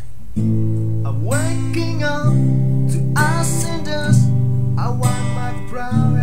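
Morris MF-201 acoustic guitar being played: plucked and strummed chords over ringing bass notes, with the chord changing about every two seconds.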